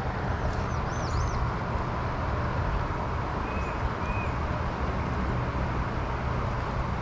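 Steady rush of a small creek's running water, with a bird chirping a few short calls.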